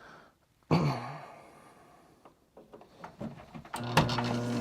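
A short, sharp sound about a second in that fades away, then near the end a click as the furnace control board comes back on and the draft inducer motor starts with a steady hum.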